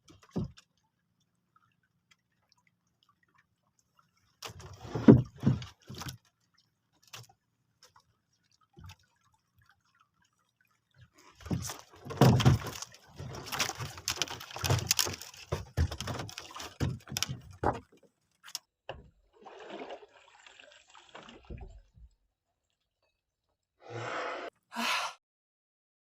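Intermittent water splashing and sloshing with scattered knocks, busiest in a long stretch through the middle.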